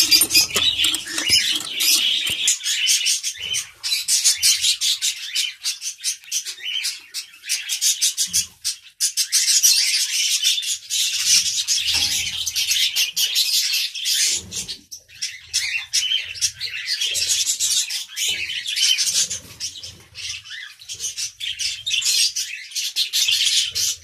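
Many small caged birds chirping and chattering together in a dense, unbroken high-pitched chorus.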